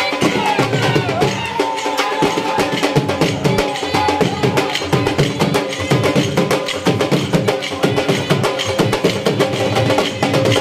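Saraiki jhumar folk music for dancing: loud, fast, steady drumming with a wavering melody over it.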